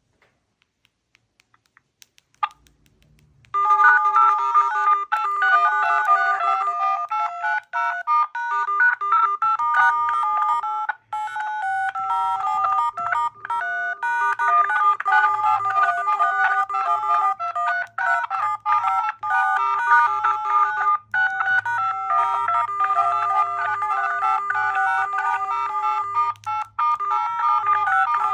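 A few seconds of silence, then a mobile phone ringtone starts: a fast electronic melody of short repeating notes over a low repeating bass line.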